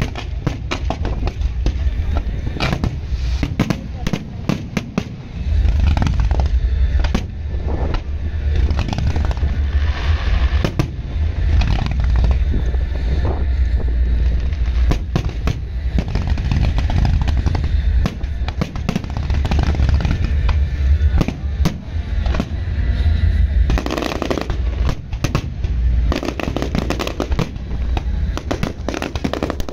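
Close-range aerial fireworks: rapid, overlapping shell bursts and crackle with heavy low booms, going on without a break.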